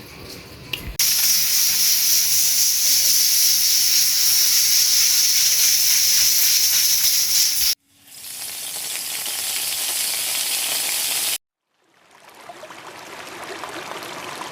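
Food sizzling as it fries in hot fat: a loud, steady sizzle in three stretches that each stop abruptly. The first starts suddenly about a second in, and the later two swell in gradually.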